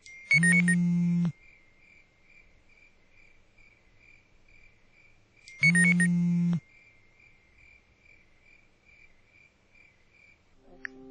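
A smartphone buzzes twice with incoming message alerts, each buzz about a second long, the second about five seconds after the first. A cricket chirps steadily underneath, about three times a second.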